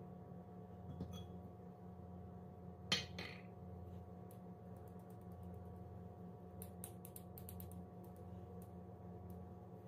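Handheld metal mesh sieve tapped over a glass bowl while sifting flour: one sharp clink about three seconds in, then a quick run of light ticks a little past halfway, over a faint steady hum.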